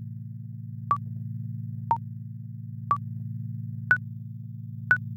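Countdown timer beeping five times, once a second, short electronic tones with the last two higher, over a steady low electronic drone.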